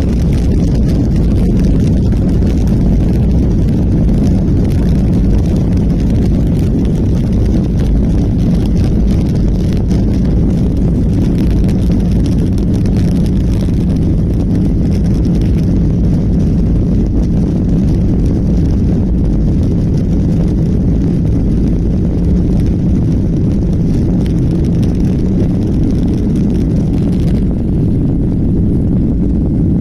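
Steady, loud low rumble of an airplane cabin in flight: engine and airflow noise.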